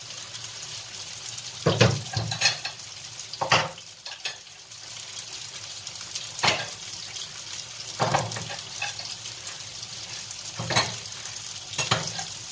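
Tofu sizzling steadily as it shallow-fries in oil in a frying pan. About seven sharp clanks of dishes and utensils being washed break in at uneven intervals.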